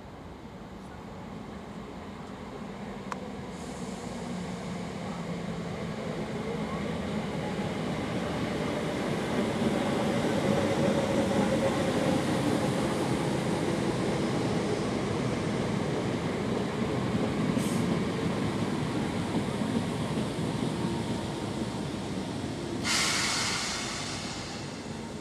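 Electric multiple unit train running into the station platform, its running noise building as it approaches and easing off near the end, with a short hiss about a second and a half long near the end.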